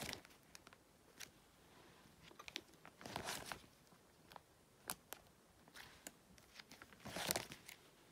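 Clear plastic card-binder pocket pages crinkling as they are handled and turned, with two louder rustles about three and seven seconds in and small clicks and ticks between.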